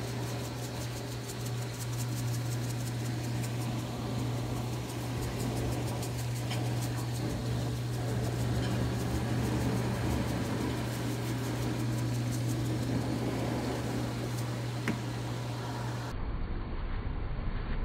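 Steady low mechanical hum, like a fan motor, with light ticking in the first half. The hum cuts off abruptly near the end.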